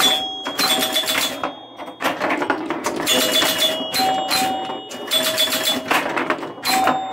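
1976 Gottlieb Ship Ahoy electromechanical pinball machine in play: rapid clattering of relays, score reels and bumpers, with scoring chimes ringing over it. The clatter comes in bursts, easing off briefly about two seconds in and again near six seconds.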